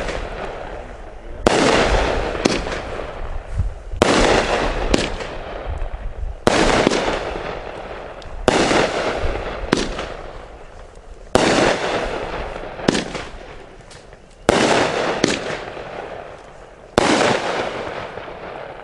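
AFW Aquarian 200-gram consumer firework cake firing its peony shots one after another: a sharp bang every two to three seconds, seven in all, each trailing off in a rolling echo, with fainter pops in between.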